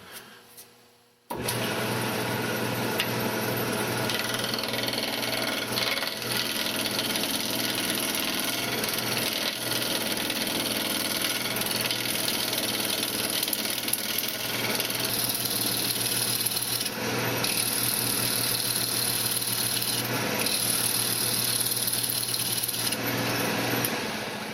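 Wood lathe running, with a turning tool cutting into the spinning wooden frame blank to true it round: a steady motor hum under the noise of the tool on the wood. It comes in suddenly about a second in and dies away near the end.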